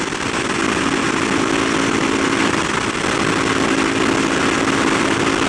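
Kawasaki supermoto motorcycle engine running at a steady cruising speed on the highway, its pitch holding even, under heavy wind noise rushing over the helmet microphone.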